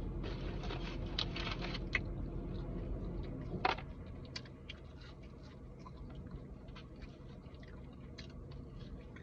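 Close-up chewing and crunching of food, with many small wet mouth clicks over a steady low hum. One sharp louder click comes a little before the middle, after which the hum drops away.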